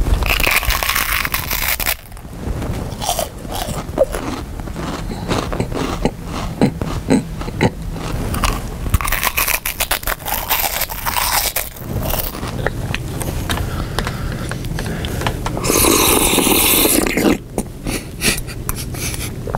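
Loud, exaggerated chewing and crunching of snacks close to the microphone: many sharp crisp cracks, with a few longer noisy stretches, the loudest about three-quarters of the way through.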